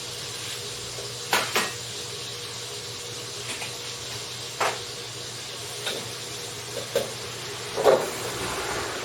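Kitchen work: a steady hiss with a faint hum underneath, broken by scattered sharp knocks and clatters of cookware and utensils, the loudest near the end.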